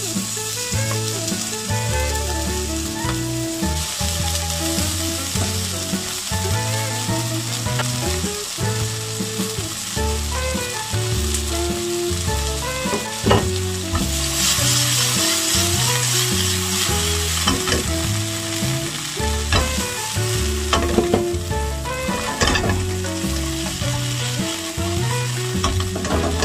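Flour-dusted oysters sizzling in a nonstick frying pan. The sizzle grows louder about halfway through as a pat of butter melts in the pan. Chopsticks stir and turn the oysters with a few light ticks near the end.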